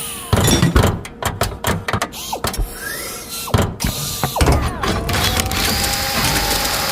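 Robotic arm sound effects: a run of sharp mechanical clicks and clunks mixed with short rising and falling servo whines, then a steady motor whine starting about two-thirds of the way in.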